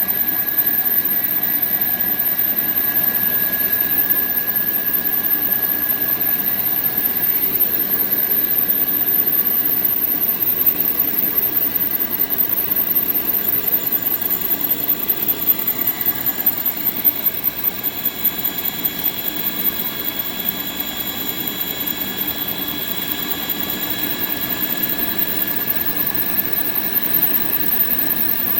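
Surface grinder running with a cylindrical grinding attachment, a steady machine hum and hiss with several held whining tones. The pitch mix shifts partway through: one tone fades about a quarter of the way in and higher tones come in around halfway.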